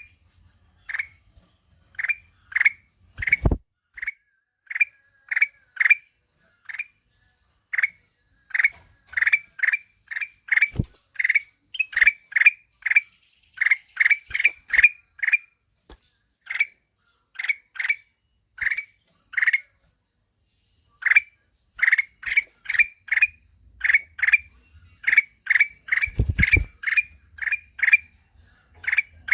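A kutilang emas bulbul calls in a long series of short, upward-flicking notes, one to three a second in irregular runs, over a steady high insect drone. There are a few dull low thumps, one a little over three seconds in with a brief dropout and another near the end.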